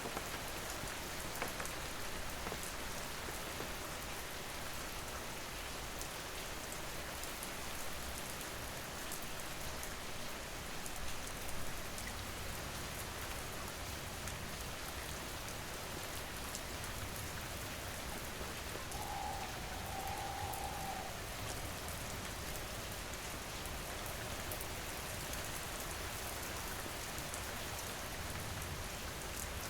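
Steady rain falling, with individual drops ticking through the constant wash. A short, faint steady tone sounds briefly a little past the middle.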